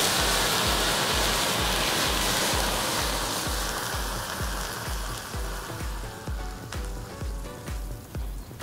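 A heap of gunpowder burning in a clay bowl with a loud rushing hiss that fades over the last few seconds as the flare dies down. Background music with a steady bass beat plays underneath.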